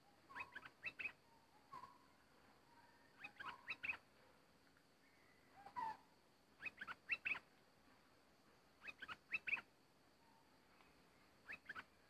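Bulbul singing: short phrases of quick, rising and falling whistled notes, repeated every two to three seconds.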